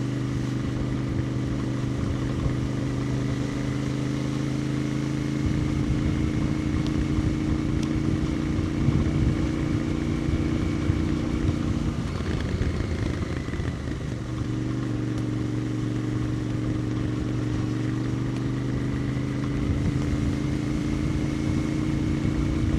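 Royal Enfield Interceptor 650's 648 cc parallel-twin engine and exhaust running at a steady cruise, heard from the rider's position. The engine note breaks up briefly about halfway through, then settles back to a steady note.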